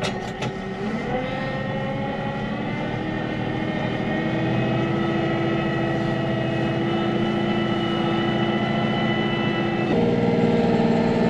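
Tractor engine running steadily while driving, its note rising a little over the first few seconds and then holding, with a sudden change in pitch about ten seconds in.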